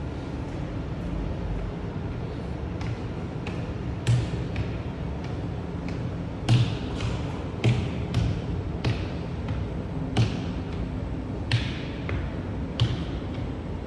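Footsteps going down a spiral staircase with metal treads, a step about every 0.6 seconds, each a dull thump with a sharp click. The steps are faint at first and grow louder about four seconds in, over a steady low hum.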